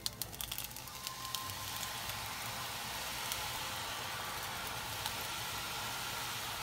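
Hot oil sizzling hard as strands of gram flour batter are pressed into it from a sav maker to fry karappusa. Sharp crackles come in the first second or so, then a steady sizzle.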